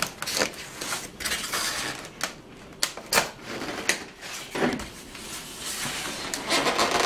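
Polystyrene foam packaging blocks being handled and shifted in a cardboard box: irregular rubbing and creaking of foam with several sharp knocks, and a denser stretch of rubbing near the end.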